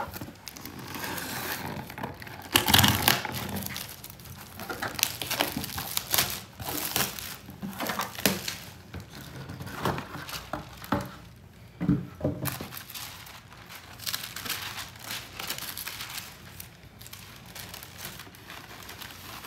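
Clear plastic shrink-wrap crinkling and tearing as it is pulled off a gift box, then tissue paper rustling as it is folded back. The crackling is loudest about three seconds in, and there is a sharp knock near the middle.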